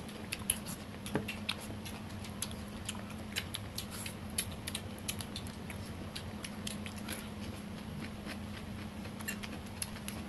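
Close-up eating sounds: boiled squid being chewed, with many small wet clicks and smacks scattered throughout, over a steady low hum.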